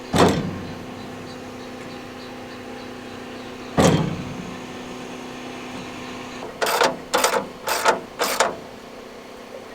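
Two sharp metal knocks, each ringing briefly, then four quick rasping strokes near the end, over a steady low hum: tools at work on the adjuster bolts of a portable sawmill's head while the blade is being levelled.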